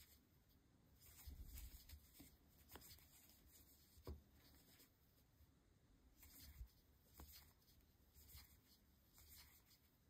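Near silence with faint rustling of yarn and scattered soft ticks of a metal crochet hook as stitches are worked by hand.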